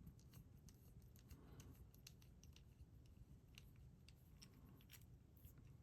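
Faint, scattered small clicks and ticks: a tiny screwdriver and small plastic parts being handled.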